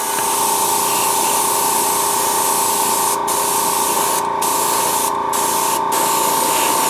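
Aerosol spray can spraying primer in one long continuous burst: a steady hiss with a whistling tone.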